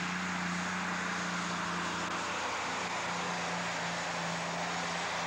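Turbocharged 19.5-litre Deutz V12 diesel in a pulling tractor, running flat out under full load as it drags a weight sled. It makes a loud, steady drone with a strong low hum that holds its pitch.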